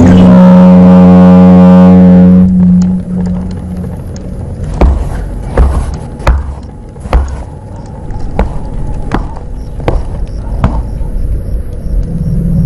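Dramatic film score: a loud held chord that cuts off about two and a half seconds in, then a slow, even series of sharp knocks with low thuds, about one every three-quarters of a second, before the music swells again near the end.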